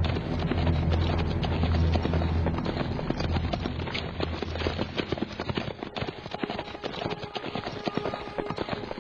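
Galloping horse hooves, a fast dense clatter of hoofbeats, with a low droning tone underneath that fades after about three seconds.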